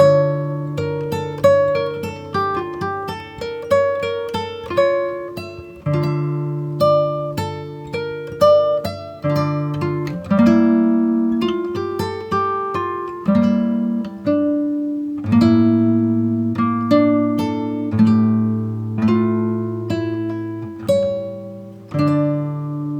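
Background music of plucked acoustic guitar, with notes picked over held bass chords that change every few seconds.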